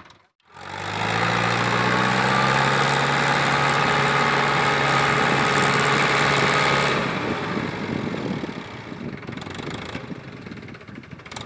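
Sonalika DI 47 RX tractor's diesel engine running loud at raised revs and held steady for about six seconds, then dropping back to a quieter, lower run.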